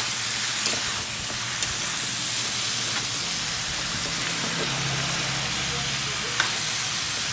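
Squash cubes, onion and dried fish sizzling in oil in a wok, a steady hiss, with a few sharp clicks of a metal spatula against the pan.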